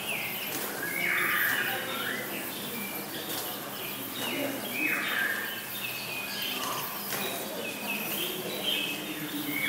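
Birds calling: a string of short whistled chirps, several overlapping, some falling in steps, through the whole stretch.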